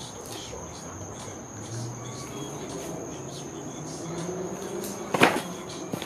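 Crickets chirring steadily at night, with one sharp crack of wooden pallet boards being broken apart about five seconds in.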